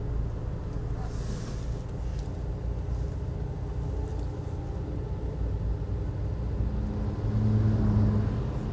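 Steady low rumble, with a brief hiss about a second in and a humming tone that swells about seven seconds in and fades near the end.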